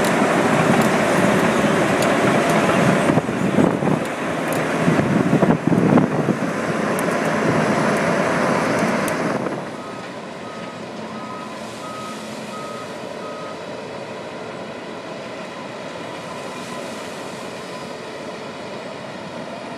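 John Deere 1050J crawler dozer's diesel engine working under load as its big chip blade pushes wood chips, with irregular knocks and scraping. About halfway through the sound drops to a fainter, steady engine note, and the dozer's backup alarm beeps about six times in an even rhythm.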